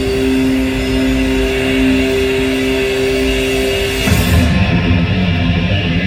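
Heavy metal or hard rock music with electric guitar, playing from a car's CD player. A sustained chord is held for about four seconds, then the full band comes in louder.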